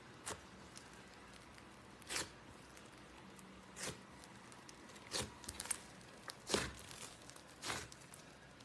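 Slime being squeezed and stretched by hand, giving a string of short separate crackles and pops, about seven, with a quick cluster of them a little past the middle.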